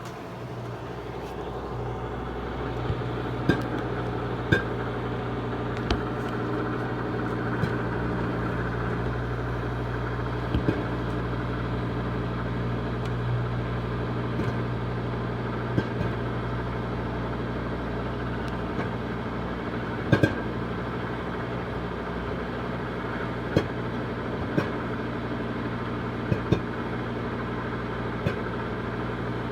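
Microwave oven running with a steady hum while popcorn kernels pop in a lidded silicone popper bowl inside it: sharp, irregular pops every second or few, the early stage of popping.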